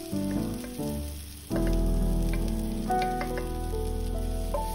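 Soft instrumental background music, sustained notes changing pitch in steps, over a faint sizzling hiss and the scrape of a wooden spatula pushing stir-fried long beans from a nonstick pan into a bowl.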